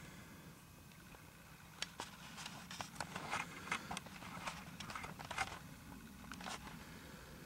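Faint, irregular rustling and clicking, densest from about two to six and a half seconds in, over a low steady hum.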